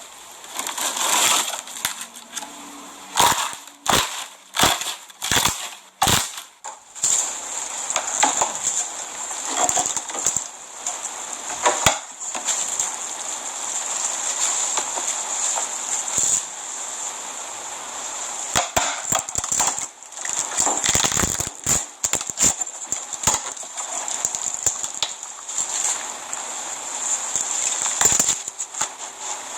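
Slime being pressed and squeezed by hand, with irregular sharp pops and crackles throughout and denser crackling stretches.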